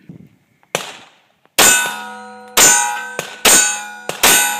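Glock 10mm pistol fired four times about a second apart, starting about a second and a half in, each shot followed by the ringing clang of a steel silhouette target being hit. A weaker, shorter shot-like crack comes just before them.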